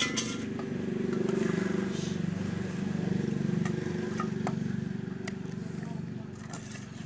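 An engine running with a steady low drone, louder in the first few seconds and easing off later, with a few light clicks over it.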